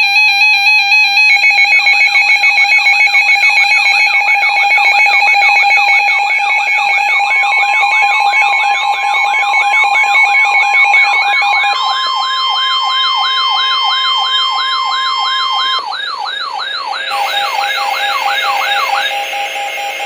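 Layered electronic siren and alert tones. A wailing siren sweeps up and down about twice a second over warbling alarm tones, and a steady single tone joins in the middle before dropping out; the mix changes every few seconds.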